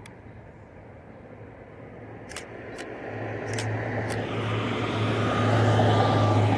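A motor vehicle approaching, its engine hum and road noise steadily growing louder over the second half and loudest near the end. Before it builds, four sharp clicks from the DSLR camera in hand.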